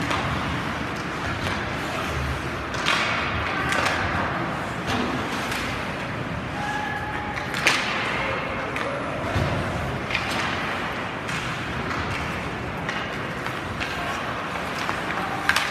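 Ice hockey game sound in a rink: a steady wash of skates on the ice, with sharp clacks of sticks and puck, the odd thud, and indistinct shouting from players and spectators.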